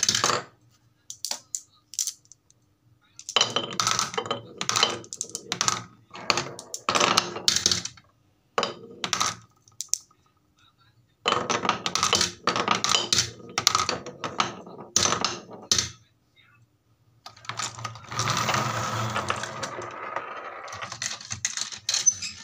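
Marbles rolling down a wooden marble-run track and clattering into a plastic toy dump truck's bed, in bursts of rapid clicks and knocks with short quiet gaps. Near the end comes a steadier rolling rattle lasting a few seconds.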